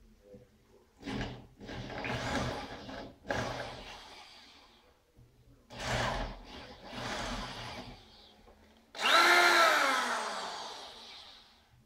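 Corded electric drill boring into a wooden chair frame's joint in several short bursts. About nine seconds in comes the loudest burst, a whine that falls in pitch as the drill winds down.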